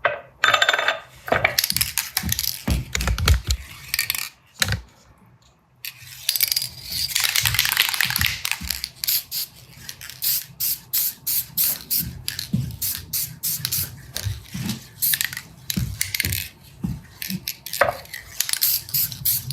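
Small metal parts clicking and clinking as they are handled, with a hiss of about three seconds starting some six seconds in from an aerosol can spraying clear coat.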